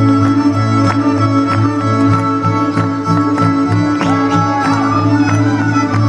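Live Slovak folk music with fiddles, played continuously with a steady beat for the dancing.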